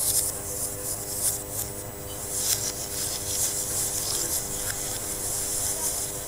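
Rain hissing steadily, swelling and easing irregularly, with a steady low hum beneath it.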